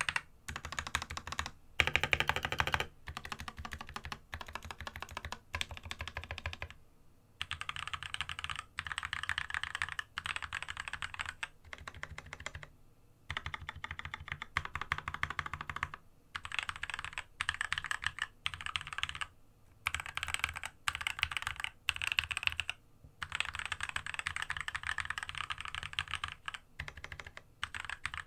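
Fast typing on a Monstargear MK308 optical mechanical keyboard with spray-lubed Gateron optical switches: rapid runs of key presses lasting a second or two, broken by short pauses.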